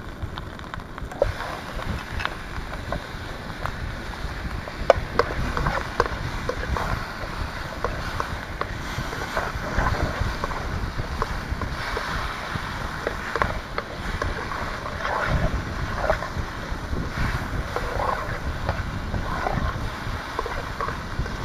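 Wind buffeting the microphone and surf, over onion and tomato frying in olive oil in a metal pan, with a spatula clicking and scraping against the pan now and then.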